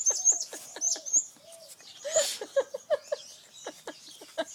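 Birds calling: a busy run of short quick calls, some high chirps and a few soft low coos.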